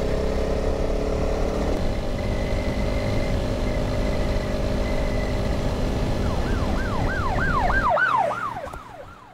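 Honda CRF300 Rally's single-cylinder engine and wind noise while riding, then from about six and a half seconds in a police siren yelping in quick rising-and-falling wails, about three a second. Near the end the riding noise falls away as the bike stops, leaving the siren.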